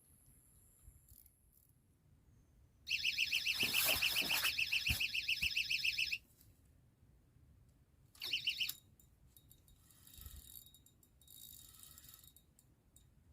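Electronic fishing bite alarm going off in a rapid, warbling string of high beeps for about three seconds, then a short second burst: a fish taking the bait and pulling line.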